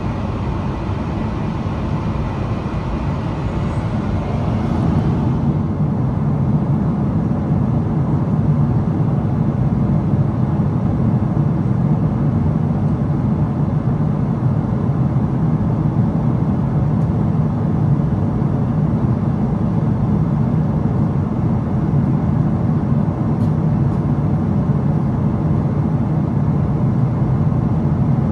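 Steady low cabin noise of a Boeing 777-300ER at cruise: the hum of its GE90 engines and the rush of air past the fuselage. A higher hiss on top fades out about five seconds in.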